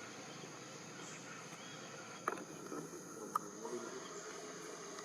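Steady high-pitched insect drone, such as crickets, with two sharp clicks about a second apart near the middle.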